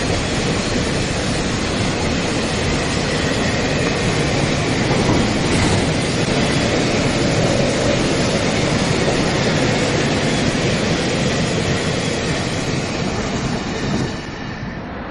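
Freight train of container flatcars and open gondola wagons rolling past, with a steady, loud noise of steel wheels on the rails. The noise drops away about a second before the end as the last wagon passes.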